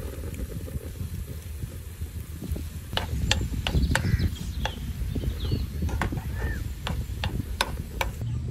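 Metal spoon stirring and scraping egg into tomatoes and onions in a nonstick frying pan, giving a series of sharp clicks and taps from about three seconds in, over a low steady rumble.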